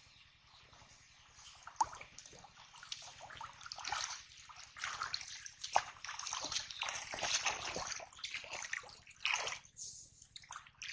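Shallow muddy water sloshing and splashing as hands grope through it and legs wade, with a couple of sharper splashes. It starts faint and gets louder from about four seconds in.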